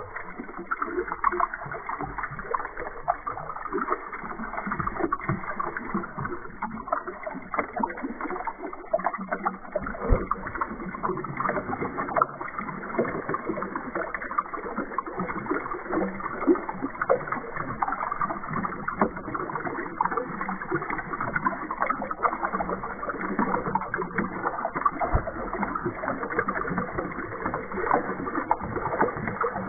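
A stream of water pouring into a tub and splashing, a steady churning dotted with many small splashes and pops.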